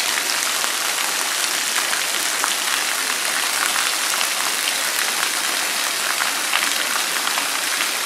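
Waterfall pouring into a shallow rocky stream: a steady rushing hiss of falling and flowing water.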